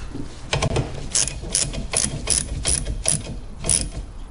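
Hand ratchet wrench clicking through a run of about eight short strokes, roughly two to three a second.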